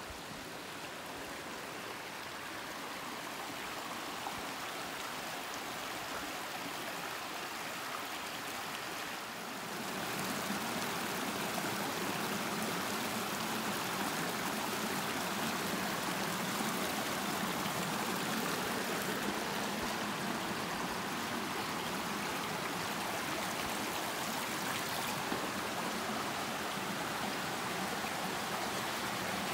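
Small rocky stream running and trickling over stones, a steady rush of water that grows louder about ten seconds in.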